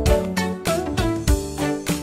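Upbeat background music with a steady beat and jazzy instrumental lines.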